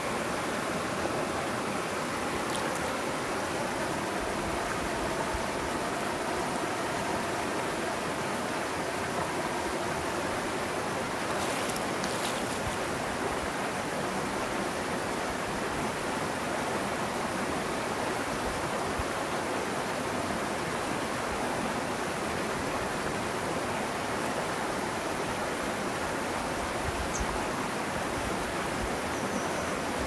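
Mountain stream cascading over rock ledges into a pool: a steady rush of running water.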